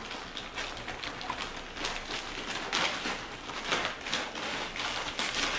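Plastic packaging bag crinkling and rustling in an uneven string of crackles as it is handled and opened by hand.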